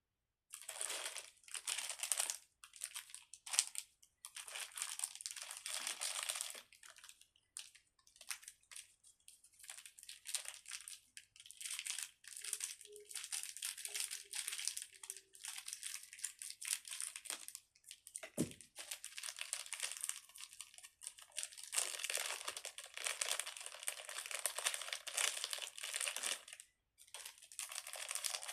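Plastic packaging crinkling and rustling in irregular bursts as small fidget toys are handled.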